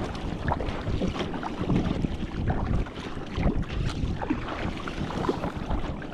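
Water splashing and lapping around a fishing ski kayak as it is paddled, with wind buffeting the microphone.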